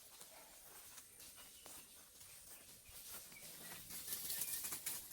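Faint outdoor rustling and light patter, growing louder in the second half, with a few brief faint high chirps.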